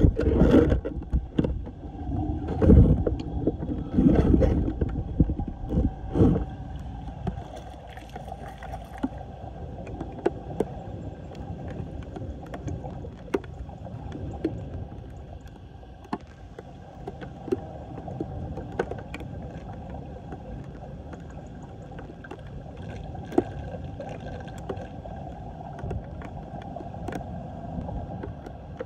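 Floodwater swirling and gurgling as it drains down a street storm drain in a whirlpool, with wind buffeting the microphone in gusts during the first few seconds.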